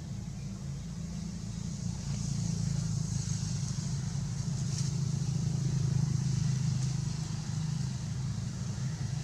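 Low drone of a motor vehicle engine, growing louder about two seconds in and easing off near the end, as a vehicle passes.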